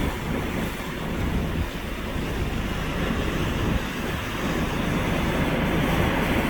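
Steady rumbling noise of the sea, waves and wind together, with the wind buffeting the microphone.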